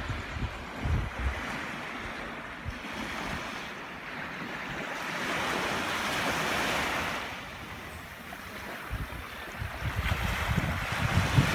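Small waves washing up on a sandy shore; one wash swells about halfway through and then fades. Wind gusts buffet the microphone near the start and again toward the end.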